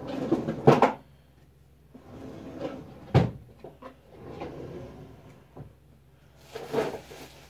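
Cabinet doors and drawers being opened and shut while things inside are rummaged through: a clatter in the first second, a sharp knock about three seconds in, rustling between, and another clatter near the end.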